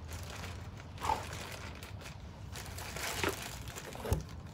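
Light knocks and rustling from a car brake rotor and its plastic wrapping being handled, over a steady low hum. There are three faint knocks, the last and sharpest near the end.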